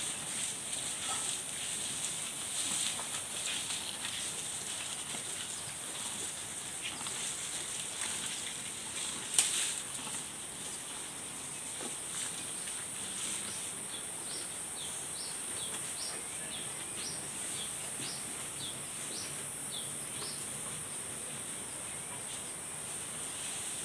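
Steady high-pitched insect buzz, with a single sharp knock about nine seconds in and a run of about a dozen short high chirps a few seconds later.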